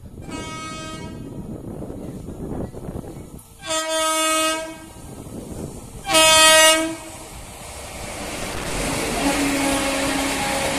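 WAP7 electric locomotive sounding its horn three times, each blast about a second long and louder than the last as it approaches. Near the end the passenger coaches roll past with rising wheel noise and rail clatter.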